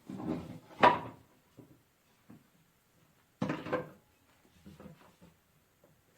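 Clunks and rattles of hard objects being handled and set down: a loud clatter about a second in, another about three and a half seconds in, and a few light taps between.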